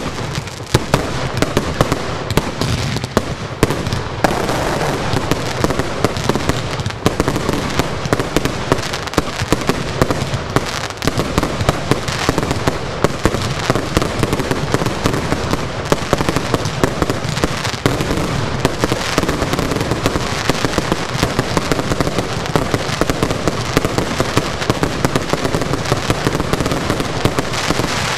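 Fireworks finale barrage: aerial shells and cakes firing and bursting in rapid, unbroken succession, a dense run of bangs several a second over a steady crackling din.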